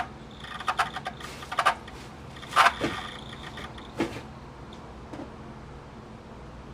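Pioneer CT-W840R cassette deck's right-hand transport making irregular short mechanical noises, about five in the first four seconds, then settling to a faint steady running sound. These are the deck's struggling noises with a good tape, so the fault lies in the deck's mechanism rather than the cassette.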